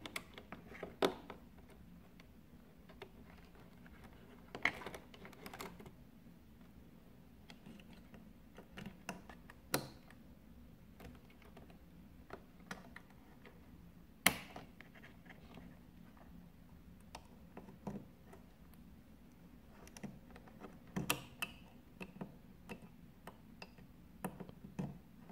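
Scattered sharp plastic clicks and light handling noise as wire connectors are pushed onto a coffee machine's control board and the wires are handled, irregularly spaced, the sharpest click about halfway through.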